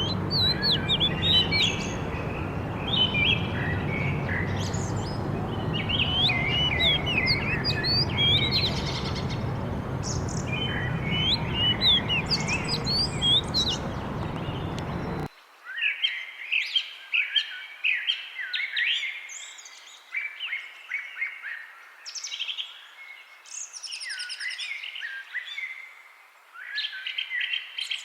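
Several songbirds singing and chirping with quick rising and falling notes and trills. For the first half a steady low background noise sits under the birdsong and cuts off suddenly about halfway through. After that the birdsong continues alone, with denser trills.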